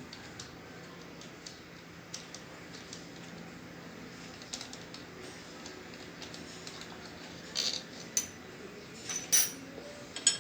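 Metal tools and starter motor parts clinking and tapping as they are handled during disassembly: scattered light clicks, then a louder run of clanks from about seven and a half seconds in.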